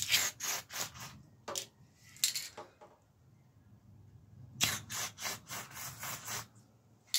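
Aerosol can of wax oil being sprayed into a bicycle frame's tubes in short hissing bursts, in three groups with pauses between.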